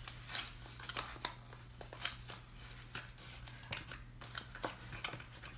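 Hands folding and pressing glued cardstock tabs into place, with soft scattered paper rustles and small taps. A steady low hum runs underneath.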